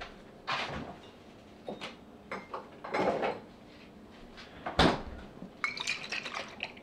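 Kitchen handling noises: scattered knocks and clicks as a cabinet door is opened and shut and items are fetched, the loudest a single thump just under five seconds in. A cluster of light clinks follows near the end as a glass bottle is handled.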